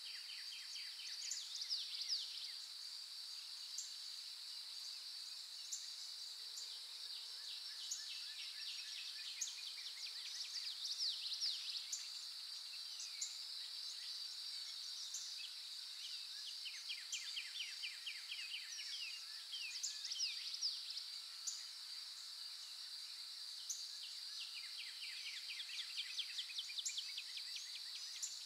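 Steady high-pitched insect drone with songbirds singing: rapid trills and sweeping phrases come back every several seconds.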